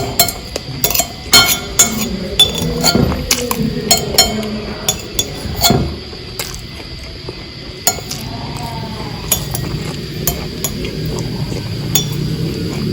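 Cutlery clinking and scraping against a plate during a meal of rice, omelette and chicken. The sharp clinks come thick and fast for the first six seconds, then grow sparse.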